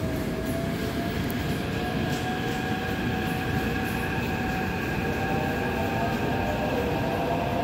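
Taipei Metro C371 train pulling out of the platform, its IGBT-VVVF traction inverter and motors whining in several steady tones that rise slowly as it gathers speed, over a constant rumble of the wheels.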